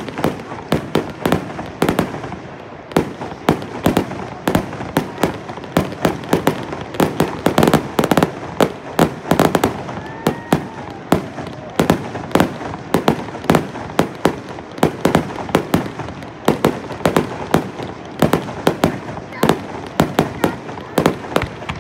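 Aerial fireworks shells bursting in rapid succession: a steady barrage of sharp bangs and crackles, several a second, with no break.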